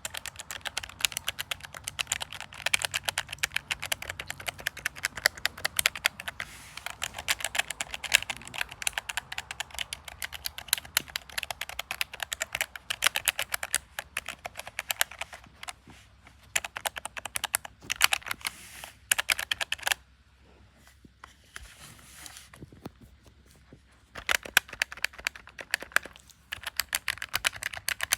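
Keycaps on the mechanical key switches of a calculator-style keycap toy being pressed quickly in a dense run of clicks. The clicking stops for a few seconds about two-thirds of the way through, then starts again.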